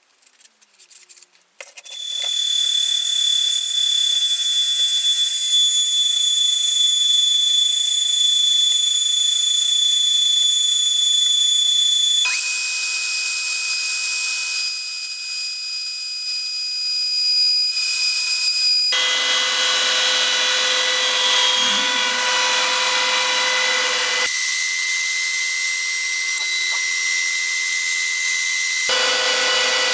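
Wood routers cutting birch plywood: a steady, loud high-pitched whine with hissing cutter noise, which jumps abruptly to a different pitch several times. Faint scratching of hand sanding comes before the router, which starts about two seconds in.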